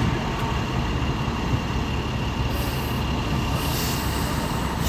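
Heavy diesel fire apparatus running with a steady low rumble. Two bursts of air hiss from its air brakes come about halfway through and near the end.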